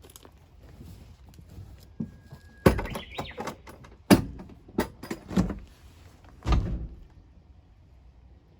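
A series of knocks and thunks, about half a dozen over four seconds, like a vehicle door or panel being handled, with a short steady tone just before the first loud thunk.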